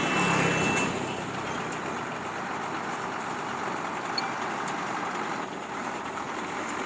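Heavy construction vehicle running steadily, with a brief high tone in the first second.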